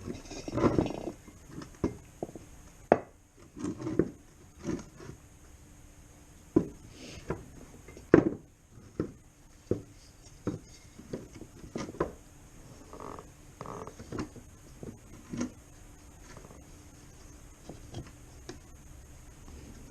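Irregular hammer blows and taps on a plastic AXP skid plate as it is worked back into shape, with the sharpest strikes about three and eight seconds in.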